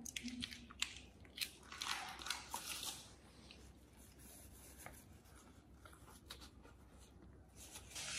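A few soft clicks and taps, then a brief rustle of a paper tissue being handled and unfolded, in the first few seconds.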